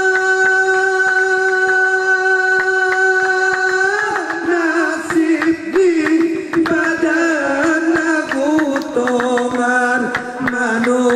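Didong Gayo singing. A singer holds one long, steady note. About four seconds in, the voice breaks into wavering, ornamented phrases, accompanied by a fast pattern of sharp claps and hand percussion from the seated group.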